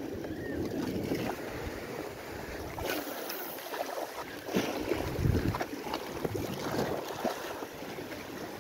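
Sea swell washing and splashing against shore rocks, rising and falling in irregular surges, with wind gusting on the microphone.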